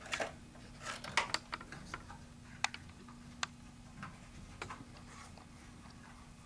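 Scattered light clicks and taps from hands handling gun-cleaning supplies (cleaning patches and their packaging), thinning out after about five seconds, over a faint steady hum.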